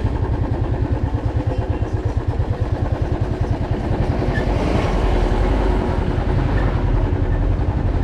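Motorcycle engine running steadily under way, with a fast, even low pulsing.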